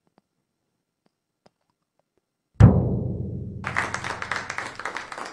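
Near silence, then about two and a half seconds in a single deep drum hit that rings on and dies away. About a second later a group of people starts clapping.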